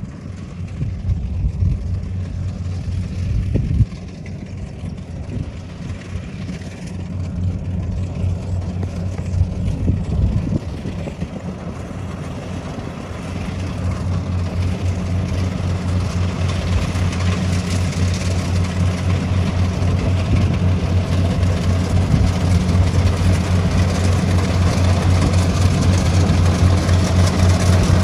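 Engine of a compact rice combine harvester running steadily while it cuts and threshes rice, a low hum that grows louder as the machine comes closer. There are a couple of short knocks in the first half.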